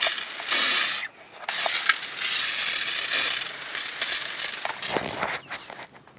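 Water hissing out of an electric pressure washer's spray wand in three bursts, at hose pressure only, with no motor running: the pressure washer has not switched on.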